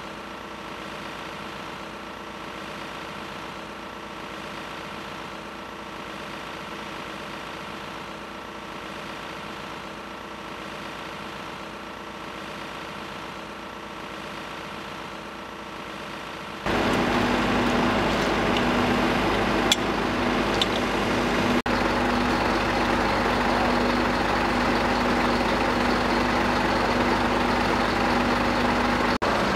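A faint steady hum of several held tones, then, after an abrupt cut about seventeen seconds in, the louder steady sound of fire engines' diesel engines idling with a held drone.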